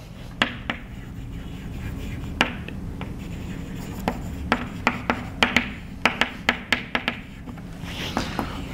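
Chalk writing on a chalkboard: irregular sharp taps and short scrapes as each letter is stroked on, over a low steady hum.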